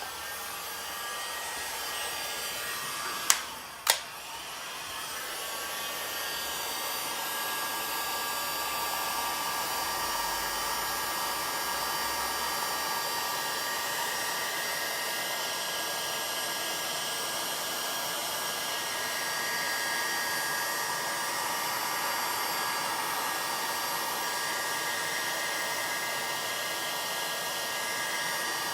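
Handheld hot-air blower running steadily, heating a navigation screen's digitizer to soften the adhesive tape bonding it to the LCD. Two sharp clicks come about three and four seconds in, after which the blower runs a little louder.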